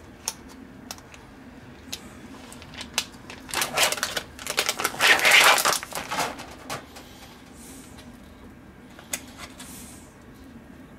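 Crinkling and crackling of plastic bacon packaging being handled and pulled open, with scattered clicks; the crinkling is densest and loudest between about four and six seconds in.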